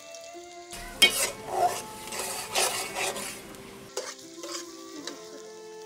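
Sliced onions frying in oil in a metal karahi, sizzling, while a metal spatula stirs and scrapes against the pan with several sharp clanks, the loudest about a second in. The stirring starts under a second in.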